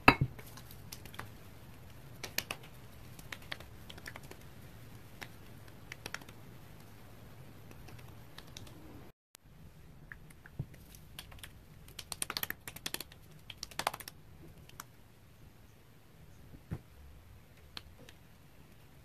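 Fingertips patting toner into facial skin: faint, scattered light taps, with a quicker run of taps about two-thirds of the way through.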